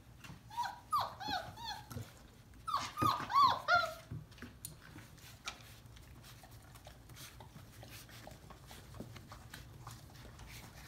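Dobermann puppy whimpering and yelping in two runs of short, high, rising-and-falling cries, the first about half a second in and the second about three seconds in. Faint clicks follow.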